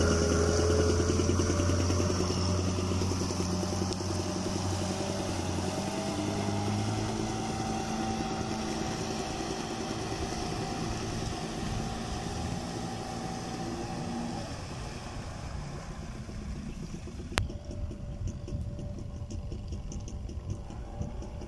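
Mercury 8 hp outboard motor running on a small boat, its sound fading steadily until the engine tone drops away about two-thirds of the way in, leaving a faint wash of wind and water. A single sharp click comes soon after.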